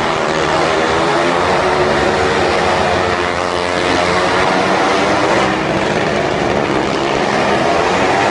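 Engines of stunt vehicles running hard as they circle the wooden wall of a well of death, a continuous loud drone whose pitch sweeps down and back up about halfway through.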